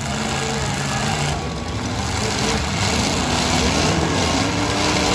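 Several demolition derby pickup trucks' engines running at once, a few revving so that their pitch rises and falls over a steady mechanical din.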